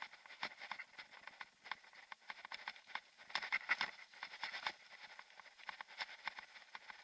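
Mountain bike clattering and rattling over a bumpy dirt track: irregular clicks and knocks, busiest from about three to five seconds in.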